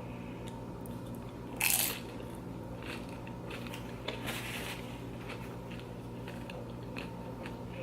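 Tortilla chips of loaded nachos crunched while eating: a loud crunch about a second and a half in, another about four seconds in, and small chewing crunches between them.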